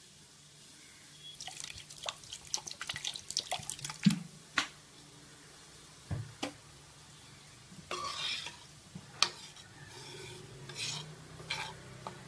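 Steel ladle stirring watery dal in a metal pot, with irregular clinks against the pot's sides and liquid sloshing, the loudest clinks about four seconds in. This is the water and spice powders being mixed into the cooked dal for sambar.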